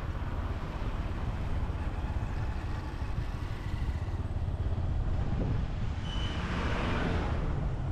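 Motorcycle running on the road with a steady low rumble of engine and wind. About six seconds in, a swell of brighter noise rises over it.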